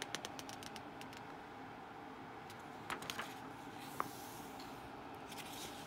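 Magazine pages being turned and handled: a few light paper ticks at the start, more about three seconds in, and a soft brush of paper about four seconds in as the page is laid flat.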